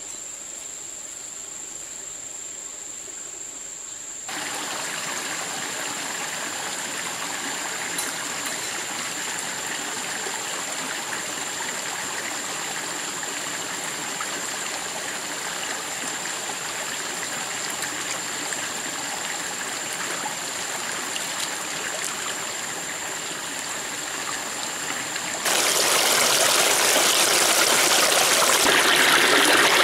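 Running stream water, a steady rush that becomes suddenly louder about four seconds in and louder and brighter again near the end. A steady high-pitched insect drone runs beneath it and stops when the water grows louder near the end.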